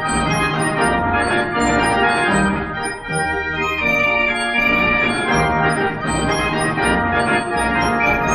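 The Great Gavioli, a Dutch street organ (draaiorgel), playing a tune, heard from a 1963 LP recording.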